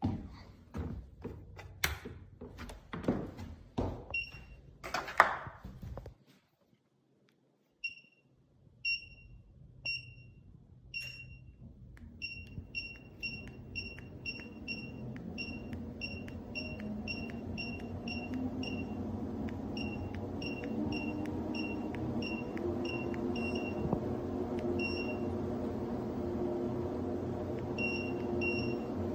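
Goplus 2-in-1 folding treadmill: a few knocks and clicks, then the console beeping with each button press, at times several beeps a second. Meanwhile the belt motor starts up and its hum grows and slowly rises in pitch as the speed is stepped up.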